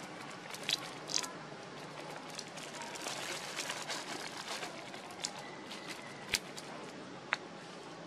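Outdoor ambience: a steady hiss with scattered light crackles and a few sharp clicks, and a brief thin whistle-like tone a little before the loudest click.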